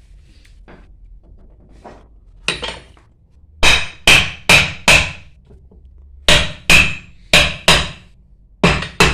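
Hammer blows with a ringing clang: two light taps, then heavy strikes in groups of four, four and two, about half a second apart.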